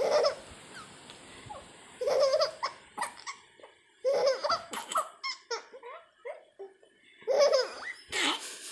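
A baby laughing in a run of short bursts of giggles, with brief pauses between them.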